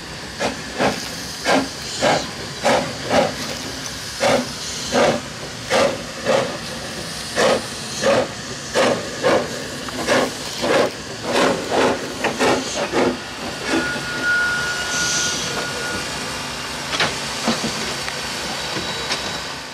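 Narrow-gauge steam locomotives working a freight train: exhaust chuffs at about two a second, slightly uneven. The chuffs stop about 13 seconds in, leaving a steady hiss of steam, with a brief thin high tone in the middle of it.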